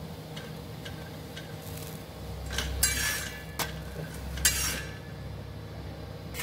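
Metal kitchen utensils clinking and scraping a few times, mostly in the middle few seconds, over a faint steady hum.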